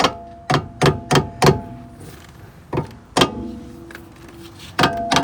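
Hammer tapping on a car's rear brake caliper and bracket to work it loose: about eight sharp metallic knocks in uneven runs, several leaving a short ringing tone.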